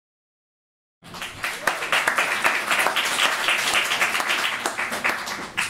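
Audience applauding, many hands clapping, starting suddenly about a second in after silence.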